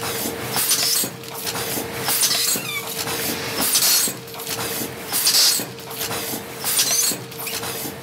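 Automatic double-roll-film shaped stand-up pouch packing machine running: a steady hum with repeated hissing surges about once a second as its pneumatic filling and sealing stations cycle, and a few faint squeaks.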